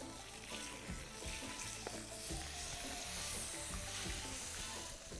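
Spiced pieces of shaari fish frying in hot oil in a frying pan, sizzling steadily, with light clicks of tongs and spatula against the pan as the pieces are turned to brown.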